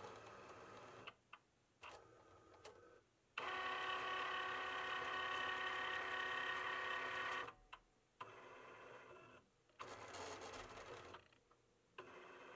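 Cricut cutting machine's motors whirring as the carriage and rollers move the blade over a print-then-cut sheet, in short runs with brief pauses. The longest and loudest run, a steady whine, lasts from about three and a half to seven and a half seconds in.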